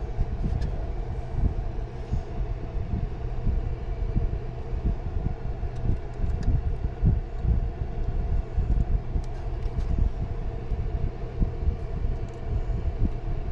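Steady low rumble with a constant hum above it, from running machinery.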